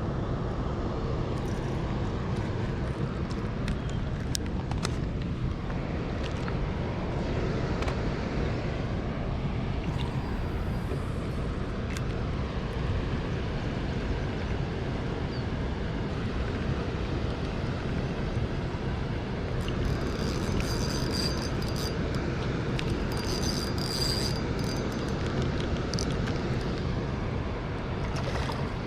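Steady rushing roar of water pouring through a spillway, even in level throughout. Twice, in the last third, a short run of faint high-pitched ticking sits on top of it.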